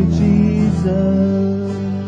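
The closing chord of a gospel song with guitar, held and slowly fading.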